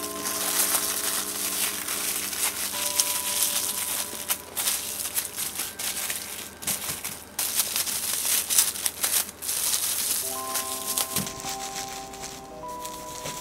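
Rapid crinkling and rustling of wrapping material being handled, over soft background music whose notes drop out in the middle and return near the end.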